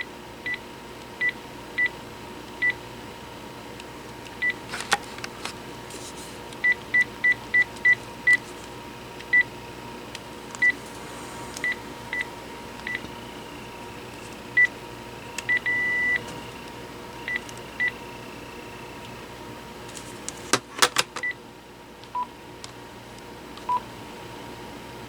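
Key-press beeps from a Panasonic KX-TG6841 cordless phone as its buttons are pressed to step through menus: one short high beep per press, sometimes in quick runs, with one longer beep near the middle. A few handling clicks come about two-thirds through, and near the end the beeps are lower-pitched.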